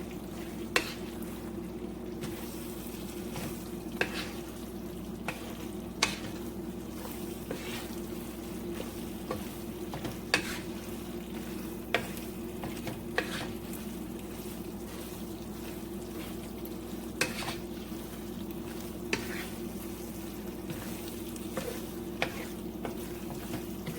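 Pasta and chicken being stirred into a hot cream alfredo sauce in a pan, the spoon knocking against the pan in irregular clicks every second or two, over a steady low hum.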